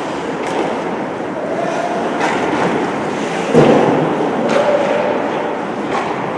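Game play: a steady rumbling, scraping noise with several sharp knocks, the loudest about three and a half seconds in.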